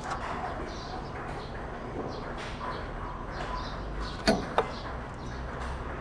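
Two sharp knocks in quick succession a little past four seconds in, from tools or parts striking during shock absorber work, over a steady background with faint bird chirps.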